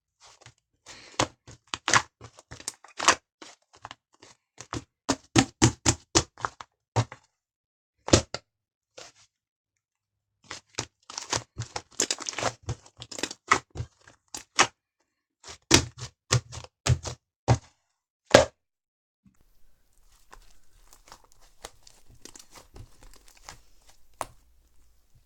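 Slime being squeezed and poked, giving runs of sharp popping clicks in bursts with short pauses between, then softer crackling for the last few seconds.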